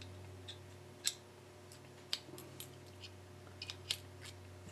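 Light, irregular clicks and ticks of small metal model steam engine parts handled between the fingers, about half a dozen, over a low steady hum.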